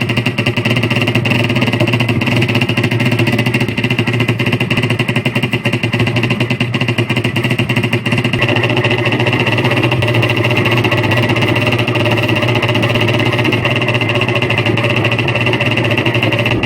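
Toy gun's clicking mechanism picked up by an old microphone and played loud through an amplifier: a continuous fast mechanical rattle made to sound like automatic rifle fire.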